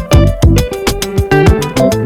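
Upbeat background music with plucked guitar, bass and a quick steady beat.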